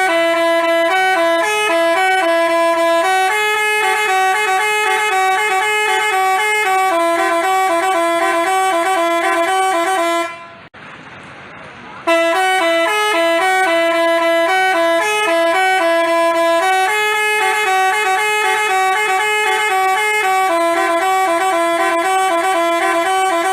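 Telolet basuri multi-tone bus horn playing a quick, jingly melody of stepping notes. It cuts off about ten seconds in, and after a short pause plays the same melody again.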